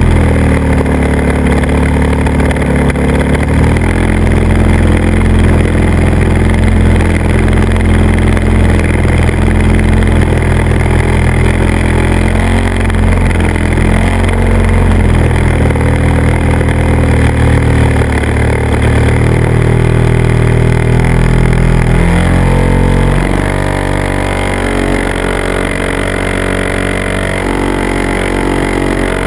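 Small aircraft engine and propeller running steadily under wind rush, heard from a camera mounted on the aircraft. The pitch steps up a few seconds in, then drops and gets quieter about three-quarters of the way through, as the throttle changes.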